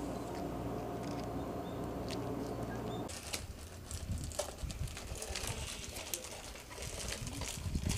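A steady low engine hum, as of the docked ferry idling, which cuts off about three seconds in. It gives way to irregular footsteps on asphalt and light patters and clicks as a crowd of cats walks along the road.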